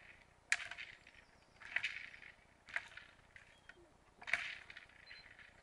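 A brown bear's paw batting a hanging plastic ball, giving sharp slapping hits about once a second, four in all.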